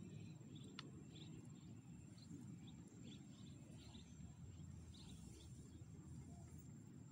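Faint open-air ambience: a low steady rumble under scattered short bird chirps and a steady high-pitched whine, with one faint click just under a second in.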